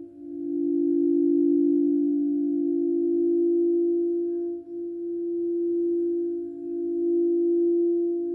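Crystal singing bowls sounding two close notes held together, ringing steadily with a slow swelling and fading in loudness.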